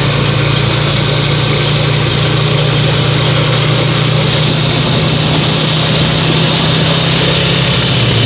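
Motorcycle engine of a tricycle running steadily at an even pitch, heard from inside its sidecar.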